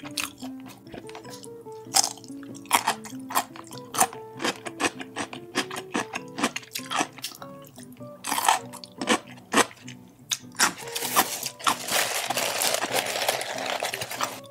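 Close-miked chewing and crunching of food, many sharp wet clicks, over background music with steady held notes. In the last few seconds a denser, continuous noisy sound rises over the chewing.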